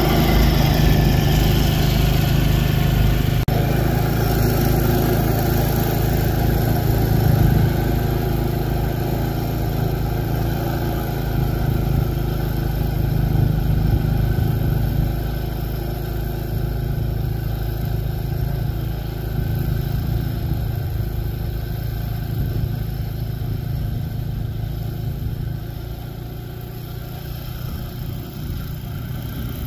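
Small walk-behind two-stage snowblower engine running steadily under load as its auger throws heavy wet snow, growing fainter as the machine moves away.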